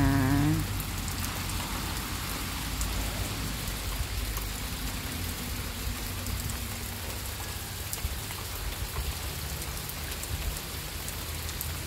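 Steady rain falling on trees and leafy undergrowth, an even hiss with single drops ticking through it and a low steady rumble underneath.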